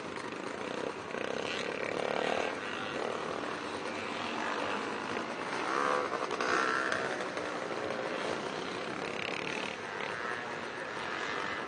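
Several vintage motocross motorcycles running round a dirt track together, their engines revving up and down, loudest about six seconds in.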